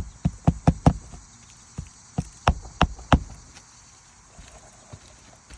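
Roofing nails being hammered into a new asphalt shingle: sharp blows in two quick runs of about five each, a second apart.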